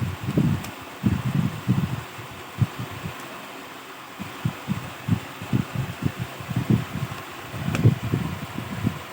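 Irregular low bumps and rustles of hands handling a laptop and its parts during disassembly, over a faint steady hiss, with a couple of light clicks.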